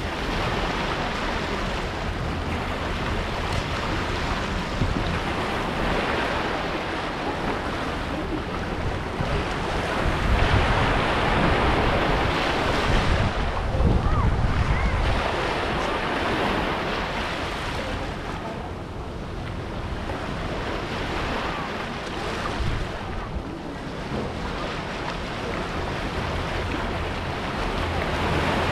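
Small waves washing in and drawing back over a sandy, rocky shore, swelling and easing every few seconds, with the loudest surges about halfway through. Wind buffets the microphone.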